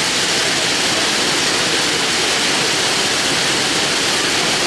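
Heavy rain falling: a loud, steady, even hiss of water.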